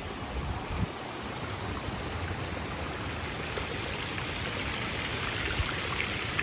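Steady rush of running water that grows brighter in the second half, with some wind rumble on the microphone in the first second.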